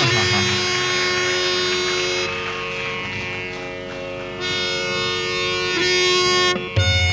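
Harmonium solo: held reed notes moving stepwise through a melodic phrase. Tabla strokes come in just before the end.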